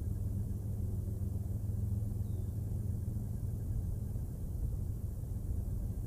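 Steady low outdoor rumble with a faint even hiss above it, and a brief faint high note about two seconds in.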